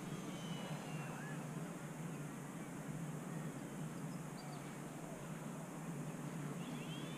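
Faint whine of a distant Volantex Ranger 757-4 RC plane's electric motor, its pitch gliding up and down with the throttle, over a steady low rushing noise.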